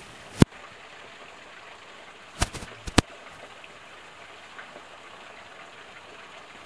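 Creek water trickling steadily, with three sharp clicks: one about half a second in, then two more close together around two and a half to three seconds in.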